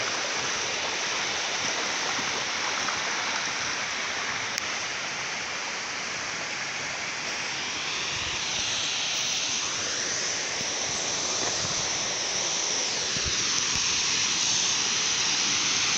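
Steady rush of a waterfall's falling water, growing slightly louder toward the end.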